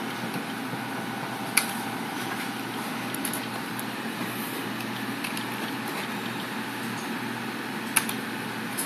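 Steady background hum with a few sharp key clicks from typing a command: a loud click about a second and a half in, a few light ones around three seconds, and another loud click near the end.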